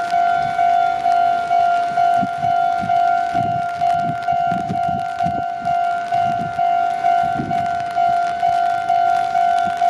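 Japanese railway level-crossing warning bell ringing, one steady electronic tone struck evenly about twice a second. Low rumbling sounds under it through the middle few seconds.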